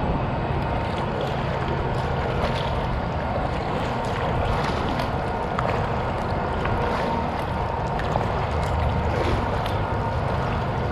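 Kayak paddle strokes: the blades dip and splash irregularly while water laps against the hull. A faint steady whine runs underneath, and there is some wind on the microphone.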